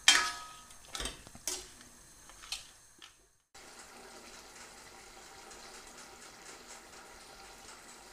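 A spoon clinks against a stainless steel saucepan four times, the first the loudest, as a fruit cake mixture is stirred. After a short break, the mixture of dried fruit, butter and water simmers in the pan with a faint steady bubbling and light crackle.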